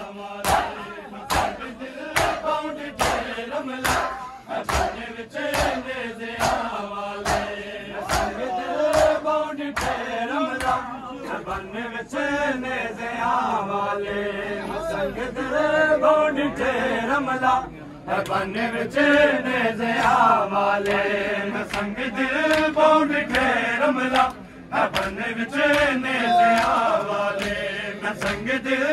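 Crowd of men chanting a noha together, with steady rhythmic slaps of chest-beating (matam) keeping the beat.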